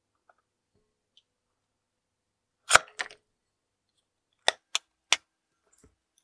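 A slime-filled latex balloon bursts as scissors cut into it: one loud sharp pop with a smaller snap right after. About two seconds later the scissors snip three times through the limp rubber.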